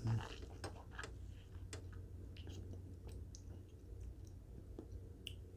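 Faint, scattered wet clicks and smacks of a mouth working a sip of whiskey around the palate, after a single soft low thump right at the start.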